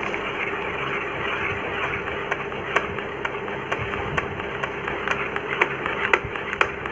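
Light clicks and crackles of a stiff paper speaker cone being handled and pressed into a speaker frame, growing more frequent near the end, over a steady background hum.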